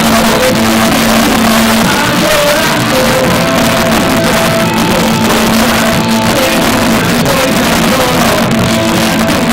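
Loud rock music from a band, with a held low note and a melody line over a dense, distorted backing.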